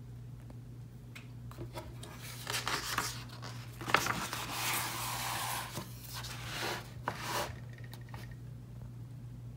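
Pages of a large picture book being turned by hand: paper rustling and sliding for several seconds, with a sharper snap of the page about four seconds in.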